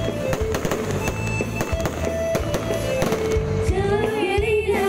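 Fireworks going off in a rapid run of sharp bangs and crackles, over music playing at the same time; a singing voice comes in with the music near the end.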